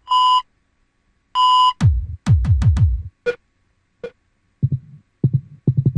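Sampled EKG monitor beeps from a drum rack, two short high beeps a little over a second apart, followed by low electronic thumps from the rack's heartbeat and bass drum samples, several hits falling in pitch and then a scattering of short low thumps.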